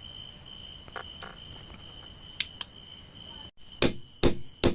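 A steady high insect chirring with a few faint taps. After an abrupt cut about three and a half seconds in, a digging tool strikes hard and evenly, about two and a half blows a second.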